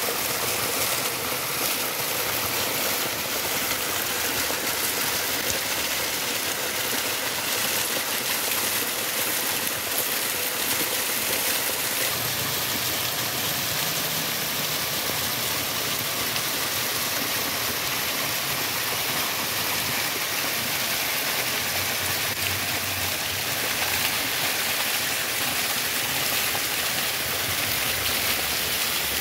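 Small waterfall: water cascading and splashing down a rock face in a steady, even rush.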